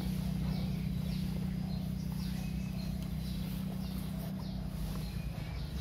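A bird's short, high, falling chirp repeated roughly every three-quarters of a second, over a steady low hum.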